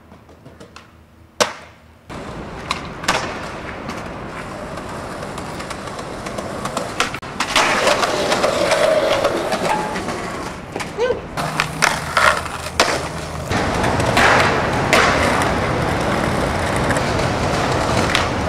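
Skateboard wheels rolling over pavement with a steady, gritty rumble that gets louder partway through, broken by sharp clacks and knocks of the board popping, hitting ledges and landing. A single sharp clack comes about a second and a half in, before the rolling starts.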